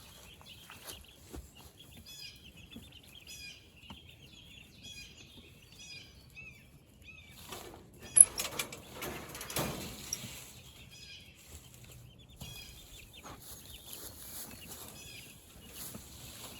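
Young meat chickens peeping and chirping throughout, with a burst of wing flapping and scuffling about halfway through and a sharp knock at its start.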